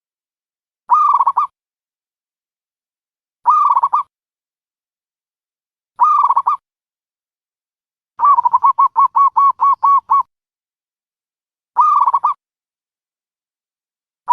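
Dove cooing: short, clear coo phrases about every two and a half seconds, with one longer run of about nine rapid coos in a row about eight seconds in.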